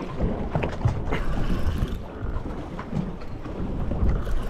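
Spinning reel being cranked to bring in a hooked fish, its gears whirring and clicking, over a low rumble of wind on the microphone.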